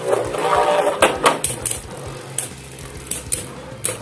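Two Beyblade Burst tops spinning and clashing in a plastic stadium: a quick run of clacks and rattles in the first second or so, then sparser knocks as they circle.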